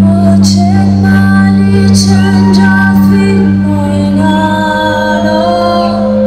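A woman singing long, wavering held notes over a steady electronic synthesizer drone.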